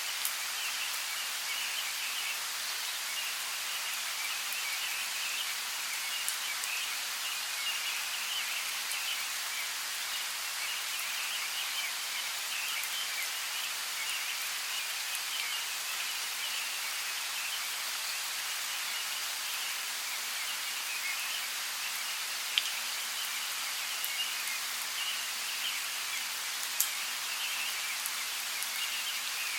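Steady rain falling in a rainforest, an even hiss of drops on foliage, with a few louder single drops ticking out now and then.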